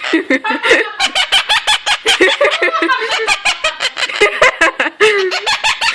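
Quaker parrot chattering loudly in quick, choppy bursts, with laugh-like giggling calls, mixed with many rapid sharp clicks.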